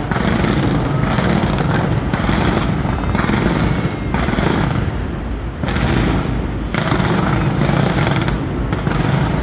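A dense, continuous barrage of fireworks: rapid, overlapping bangs and crackle with hardly a break, briefly easing about four and five and a half seconds in.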